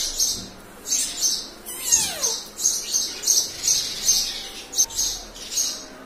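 Indian ringneck parakeet chattering in a quick run of short high chirps, about three a second, with one falling whistle about two seconds in.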